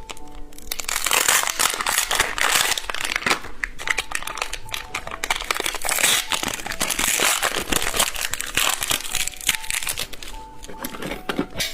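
Crinkly plastic candy packaging being handled and torn open, a dense irregular crackling, over quiet background music.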